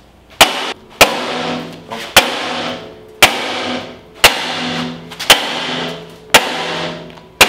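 Sledgehammer blows on steel, eight strikes at about one a second, each ringing out after the hit, driving out a rust-seized front suspension pivot on a go-kart frame.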